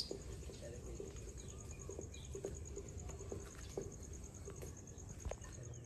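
Insects trilling steadily in a fast, even, high-pitched pulse, with a bird's short rising chirp right at the start and a few faint bird chirps after it.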